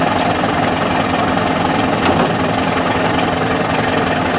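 Steyr 50 tractor's diesel engine idling steadily.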